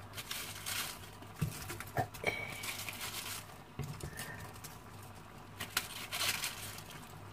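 Cut cabbage leaves rustling and crinkling in irregular bursts as they are handled and dropped by hand from a plastic colander into a pan of vegetables, with a few small taps.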